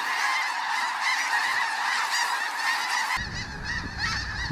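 A huge flock of snow geese calling overhead, a dense chorus of many overlapping honks. About three seconds in the sound changes abruptly: the chorus thins out and a low rumble comes in underneath.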